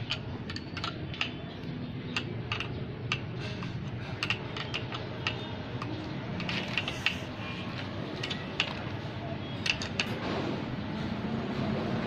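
Irregular metal clicks and ticks of a wrench working the top nut of a car's rear coil-spring strut held in spring compressors, a few a second. A low vehicle rumble swells near the end.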